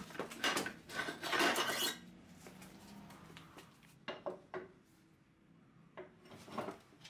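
Knocks and scraping as a 10-inch belt-grinder contact wheel is handled and fitted onto the grinder's metal tool arm. There is a cluster of rubbing and knocks in the first two seconds, then a few separate light knocks.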